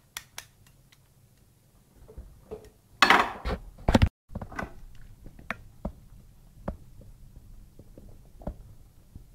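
Steel chain-stitch attachment handled at a sewing machine's rotary hook: scattered light metal clicks and taps, with a louder rattling stretch about three seconds in that cuts off suddenly.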